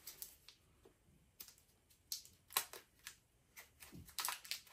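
Faint, scattered clicks and crinkles of handling as gloved hands unwrap the wrapping from the brass end fitting of an old flamethrower hose, with a quicker cluster of clicks near the end.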